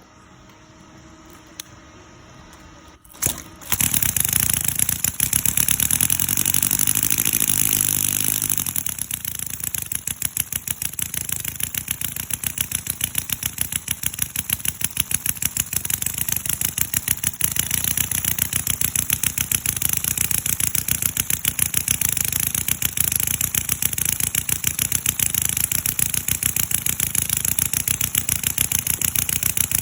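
CISON FG-VT157 miniature V-twin four-stroke model engine starting about three and a half seconds in, then running with an even, rapid firing beat and a high hiss; its note changes about eight seconds in and then holds steady.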